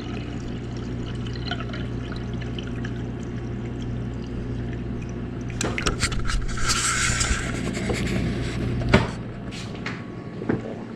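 Refrigerator door water dispenser running into a glass: a steady hum with water pouring. The pour gets louder with a few clicks about six seconds in, and the dispenser shuts off with a click about nine seconds in.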